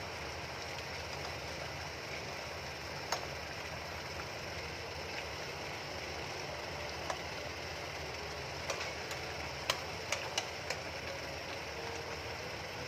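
A metal spoon stirring a pot of simmering chicken caldereta and clicking against the rim of the nonstick pot, a few times about three seconds in and then more often in the second half. A steady whirring noise runs underneath.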